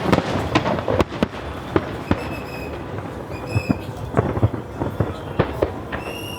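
Aerial fireworks bursting: a rapid, uneven series of sharp bangs and crackles, with a few brief high-pitched tones sounding over them.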